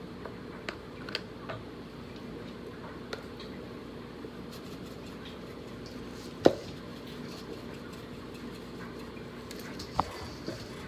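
Hands handling and rubbing raw whole chickens in a metal pan: faint pats and small clicks, with a sharp knock about six and a half seconds in and a smaller one near the end, over a steady low hum.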